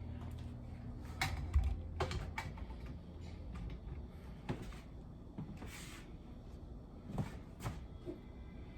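Scattered light knocks and clicks of a pan and kitchen utensils being handled, about eight in all, over a low steady hum.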